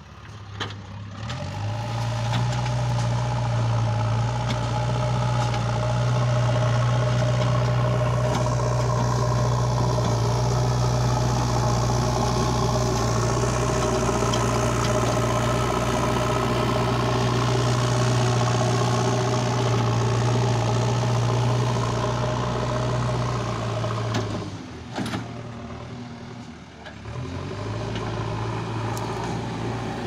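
JCB 3DX Eco backhoe loader's diesel engine running steadily under working load as the machine pushes brush and dirt with its front bucket. The sound drops away briefly near the end, then the engine note returns.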